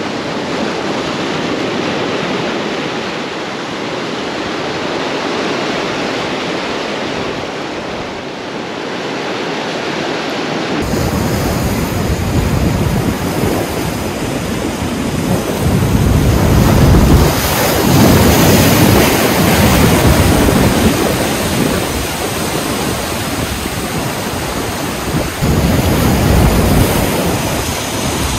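Ocean surf surging and breaking against shoreline rocks, foaming water washing steadily. About eleven seconds in, wind starts rumbling on the microphone, and the surf then comes in louder surges.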